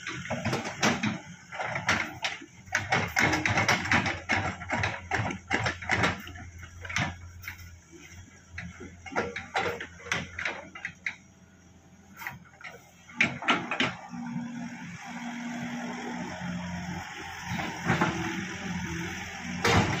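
Crawler excavator's diesel engine running with a steady low hum under repeated, irregular metallic clanks and knocks as it tracks and turns over loose dirt. The knocks come thick during the first several seconds, ease off in the middle, and pick up again later.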